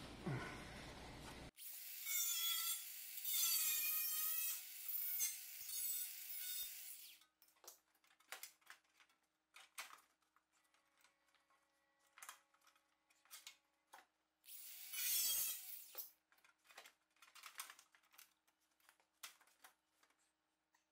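Sheet metal of a Jeep CJ7's inner fender being cut with a saw: a spell of several seconds of cutting with a wavering high pitch, then scattered clicks and taps, and a second short burst of cutting about fifteen seconds in.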